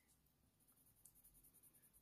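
Faint scratching of a Faber-Castell Polychromos coloured pencil stroked lightly back and forth on hot-press watercolour paper. It starts about a second in and goes at about eight quick, even strokes a second.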